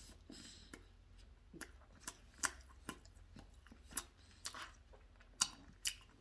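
A person chewing a fried chicken sandwich close to the microphone, with irregular wet mouth clicks and smacks.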